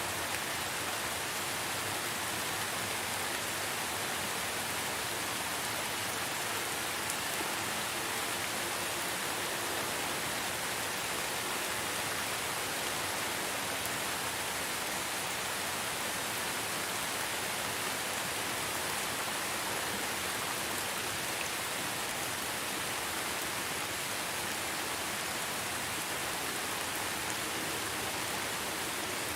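Steady rainfall, an even hiss of many drops falling.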